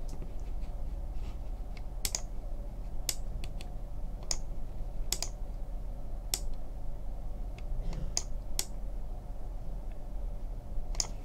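Sharp single clicks, about nine of them at irregular intervals of half a second to two seconds, made while the camera's focus is being adjusted, over a steady low electrical hum.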